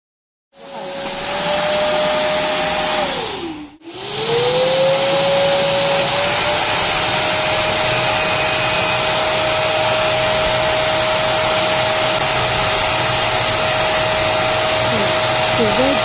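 American Micronic wet and dry vacuum cleaner running, a steady rushing of air under a single motor whine. About three seconds in, the whine falls in pitch and the sound cuts out briefly. It then climbs back up and holds steady.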